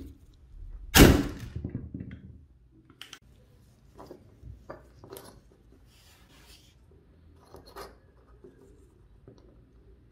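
A hand pop-rivet gun sets a steel rivet in a sheet-metal bracket, with one loud sharp snap and a short ring about a second in as the mandrel breaks off. After it come scattered light clicks and knocks of steel bearing parts handled on a wooden bench.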